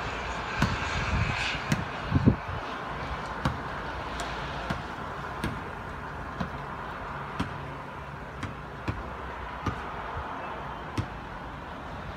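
Steady outdoor city background with a low traffic hum. Sharp ticks come about once a second, with a few heavier low thumps in the first couple of seconds.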